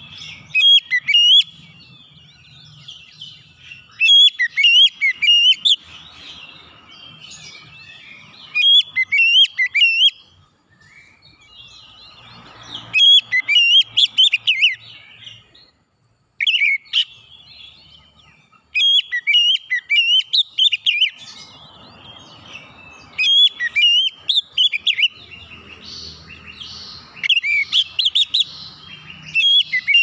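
Male oriental magpie-robin (kacer) singing: loud, varied whistled phrases of quick up-and-down notes, in bursts of a second or two that come again every few seconds with short pauses between.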